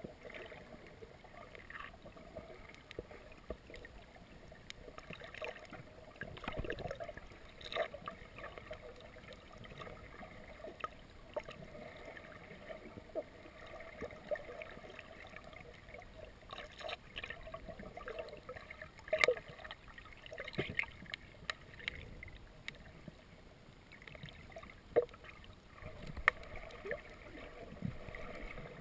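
Underwater sound on a free diver's camera: a faint, muffled water wash with a steady low hum, broken by scattered sharp clicks and knocks, the loudest about two-thirds of the way through.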